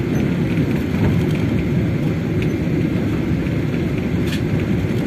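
Steady low rumble inside the passenger cabin of a Boeing 777 airliner taxiing, its engines running at low taxi thrust.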